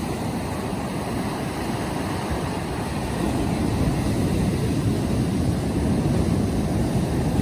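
Steady rumbling wind noise on the microphone mixed with surf breaking on the shore, growing a little louder about three seconds in.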